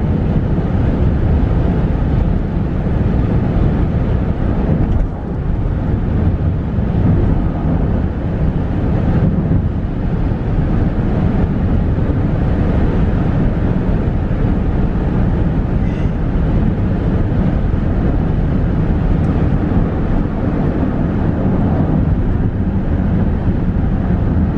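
Steady low rumble of a car travelling at expressway speed, heard from inside the cabin: tyre and road noise with some wind noise.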